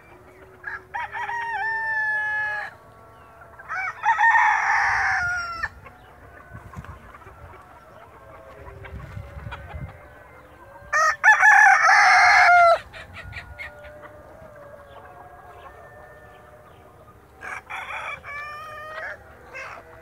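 Desi roosters in a free-range flock crowing four times, each crow lasting one and a half to two seconds, the third the loudest, over steady soft clucking from the hens.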